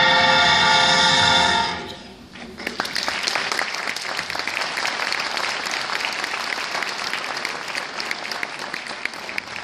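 A children's choir holds the final chord of a song, cutting off a little before two seconds in; the audience then applauds.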